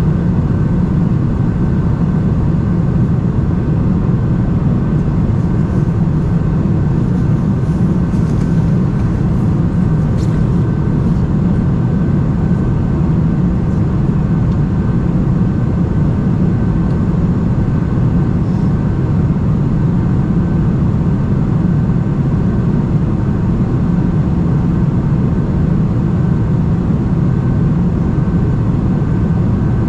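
Steady cabin noise inside a Boeing 747-400 in flight: a deep rumble of engines and airflow with a thin high tone running through it, and a few faint ticks in the first half.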